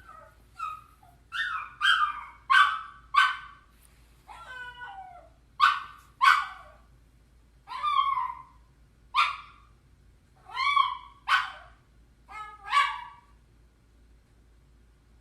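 A dog crying in a string of about a dozen short, high whines and yelps, one of them a longer falling whine. The cries stop about a second before the end.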